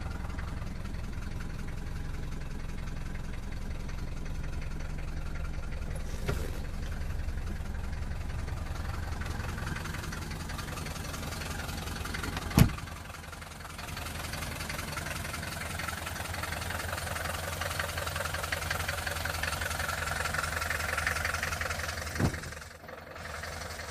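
Mercedes-Benz 220 D (W115) four-cylinder diesel engine idling with a steady knocking clatter. About halfway through a car door shuts with a single loud bang, after which the idle is heard from outside the car; a second, smaller knock comes near the end.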